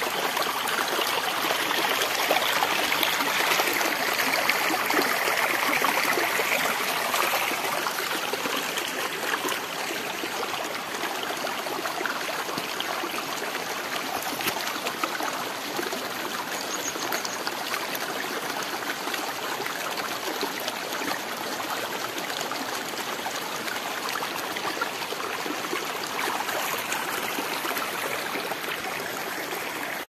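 Shallow stream running over rocks and pebbles: a steady rush and trickle of water, a little louder for the first eight seconds or so.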